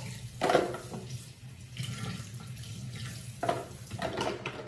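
Kitchen faucet running into a stainless steel sink as things are washed under it, with a few brief knocks and clatters at the sink.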